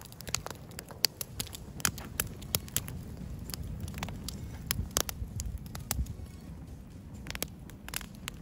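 Split-log wood fire crackling, with irregular sharp pops and snaps throughout over a low rumble.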